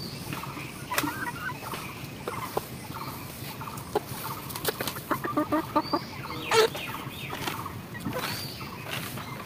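Chickens clucking in short calls, with scattered sharp knocks and scrapes in between.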